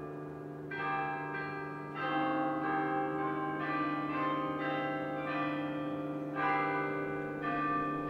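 Background music played on tuned bells: single notes struck one after another, about one new note a second, each ringing on and overlapping the next, over a steady low tone.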